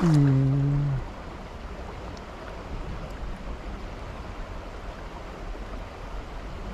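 Fishing line whirring off a spinning reel's spool as the nymph is cast: a tone that drops in pitch and then holds for about a second before stopping abruptly. After it, the steady rush of a shallow river.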